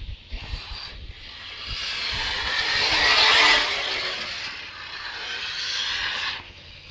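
Radio-controlled off-road car passing close by on a dirt track. Its motor and tyres grow louder to a peak about three and a half seconds in, then fade away.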